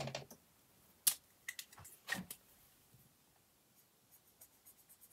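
A few sharp clicks and taps as a card and pen are handled on a table, then, from about four seconds in, faint short scratches of a pen writing on a card.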